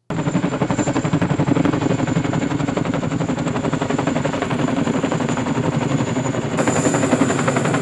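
Tandem-rotor Chinook heavy-lift helicopter flying overhead: a loud, fast chopping beat of its rotor blades, with a steady high turbine whine over it that grows a little stronger near the end.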